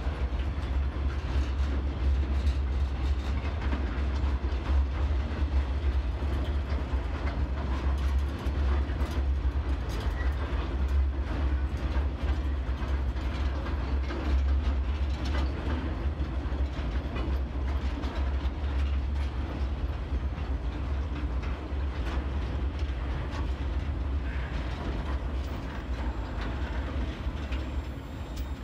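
Empty log wagons of a freight train rolling over a rail bridge: a steady low rumble with continual clicking and clacking of the wheels on the rails.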